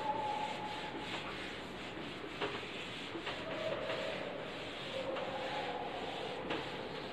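Whiteboard duster wiping a whiteboard clean: a rubbing hiss with several drawn-out squeaks as it drags across the board, and a few light knocks.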